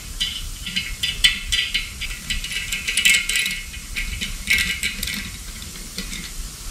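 Small steel hand tools, an Allen key and a thread tap, clicking and rattling against an LS V8 engine block while fitting the 10-32 Allen screws that pin the cam bearings. The light metallic clinks come in irregular clusters, busiest about one to three and a half seconds in and again around four and a half seconds.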